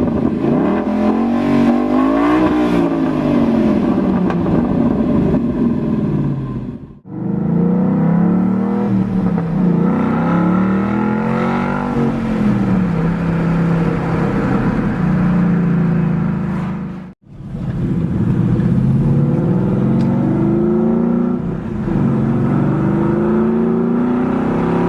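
2013 Ford Mustang Boss 302's 5.0-litre V8 on its stock quad exhaust, revving up and down over and over. The engine note is cut off abruptly twice, about seven and seventeen seconds in.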